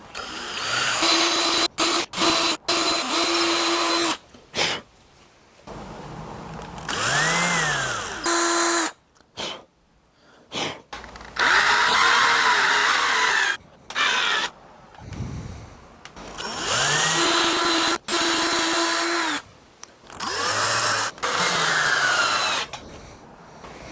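Electric drill boring holes through a wooden 1x2 stock, in about five bursts; within each burst the motor whine climbs as the trigger is squeezed and falls away as it is released, with sudden stops in between.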